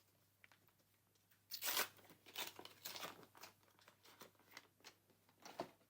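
Trading card booster pack wrapper being torn open and crinkled by hand: a louder tearing rustle about a second and a half in, then a run of short crackles.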